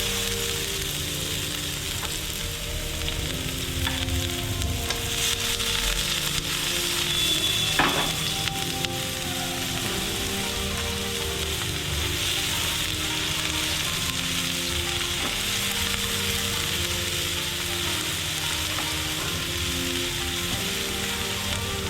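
Chopped garlic and onion sizzling steadily in hot vegetable oil in a frying pan, with soft background music underneath.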